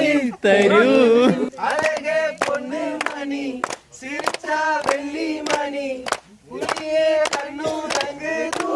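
A group of people singing a song together, with hand claps keeping a steady beat about twice a second.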